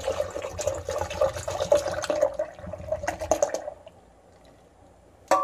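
Evaporated milk pouring from a can into a glass blender jar. It thins to a faint trickle after about four seconds, and a sharp clink with a short ring comes near the end.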